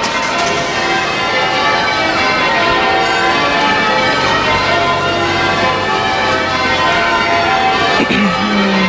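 A ring of church bells in change ringing: the bells strike one after another in a steady stream of changes, their tones overlapping and ringing on.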